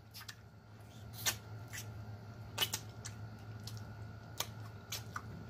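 Close-up mouth sounds of eating cooked chicken feet: scattered wet clicks and smacks as the skin and meat are sucked off the small bones, over a steady low hum.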